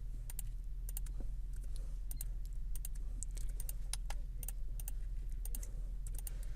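Computer keyboard keys and mouse buttons clicking at an irregular pace, over a steady low hum.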